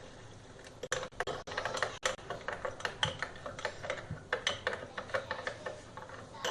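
Metal spoon clinking against a cup, about three or four clinks a second from about a second in until near the end, as hot milk and coffee mix are stirred together.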